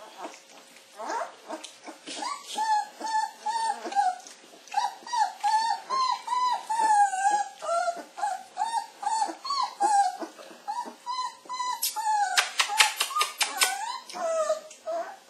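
Young Laekenois puppies whimpering and squeaking, a steady run of short high-pitched calls several a second. A quick burst of clicking noises comes about twelve seconds in.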